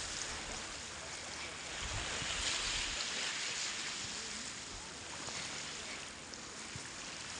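Small waves washing onto a sandy beach, a steady hiss that swells louder about two seconds in and eases off after.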